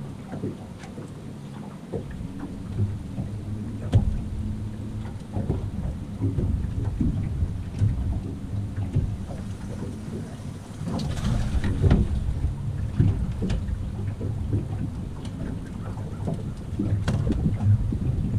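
Wind rumbling on the microphone and water lapping against the boat's hull, with scattered knocks from gear being handled in the boat and a few louder thumps, about four seconds in and again around eleven to twelve seconds in.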